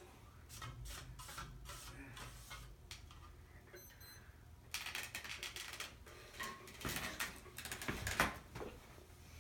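Ceiling fan motor humming low and steady, with scattered clicks and rustles over it.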